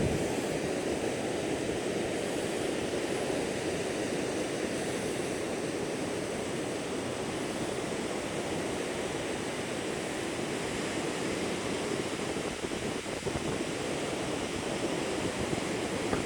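Steady rushing of ocean surf mixed with wind, an even roar that holds at one level throughout.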